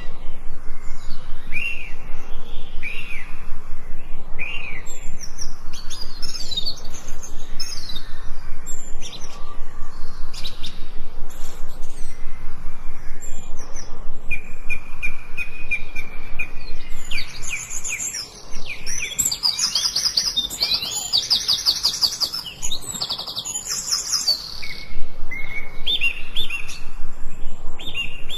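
Several forest birds singing and chirping. Short rising whistled notes come first, then steady trills, and a dense burst of rapid chirping about two-thirds of the way through.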